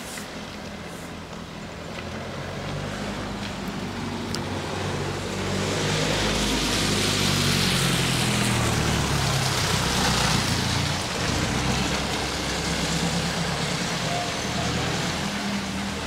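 A motor vehicle drives past on the wet road: a low engine hum with tyre hiss that swells, is loudest about six to eleven seconds in, then eases off.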